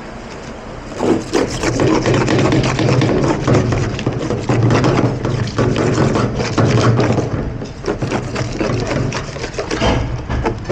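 Paint scraper scraping repeatedly across a surface in quick, uneven strokes, starting about a second in, with a low steady hum underneath.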